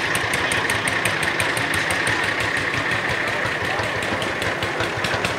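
Lanz Bulldog's single-cylinder hot-bulb two-stroke engine running steadily with a quick, even chugging beat.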